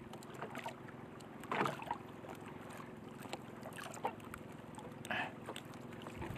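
Faint wash of water and wind around a small outrigger boat, with a few brief knocks and rustles as a small fish is taken off a handline hook.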